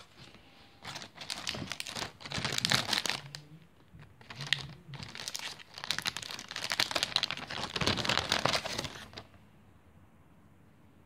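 Clear plastic packaging bags crinkling as they are handled and opened, in two long spells with a short pause between, stopping a couple of seconds before the end.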